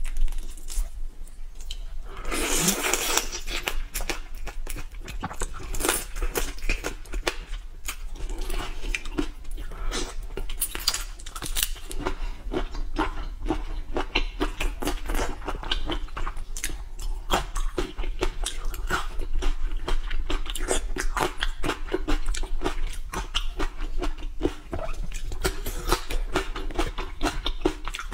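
Close-miked eating of large whole prawns: crackling of the shells being peeled, and wet chewing and crunching with many small clicks throughout. The loudest moment is a burst of crackling about two seconds in.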